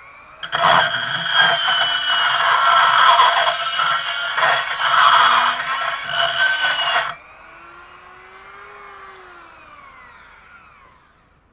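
High-speed rotary tool with a carbide burr grinding metal inside an engine port, a steady high whine with scraping, for about six seconds. Near seven seconds the cutting stops and the tool's motor winds down, its whine falling in pitch and fading out.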